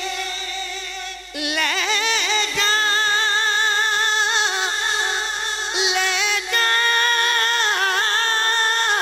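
A man singing a Punjabi naat into a microphone, drawing out long held notes with wavering ornaments. After a quieter first second or so, the voice comes in strongly and stays loud.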